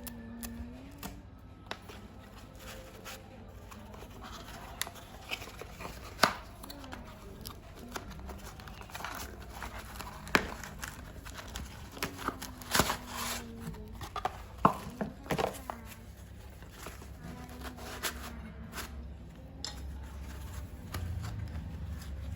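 Scattered clicks and knocks of hard objects being handled, a few of them sharp, over a steady low hum and faint voices in the background.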